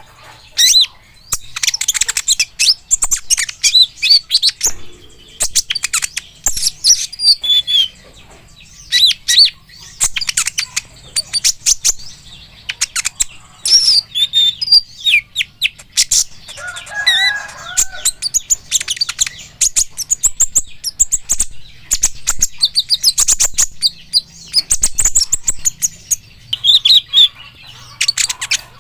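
Kolibri ninja sunbird singing: rapid runs of short, sharp, high-pitched chirps and trills in quick bursts with brief pauses, and a lower warbled phrase about two-thirds of the way through.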